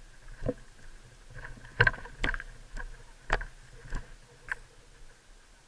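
Footsteps crunching on dry gravelly ground, about two steps a second, with the loudest step about two seconds in.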